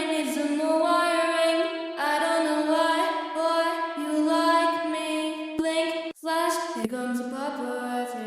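Female pop vocals singing long held, layered notes in a demo recording, with no drums or bass heard. The voices break off briefly twice about six seconds in.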